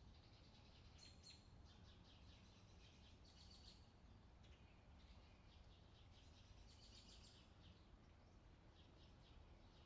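Faint outdoor ambience of small birds singing in quick chirping, trilled phrases every second or two, over a steady low background rumble.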